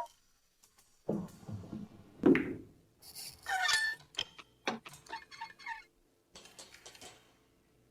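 A string of cartoon sound effects: low thuds, sharp knocks and a short pitched squawk-like cry.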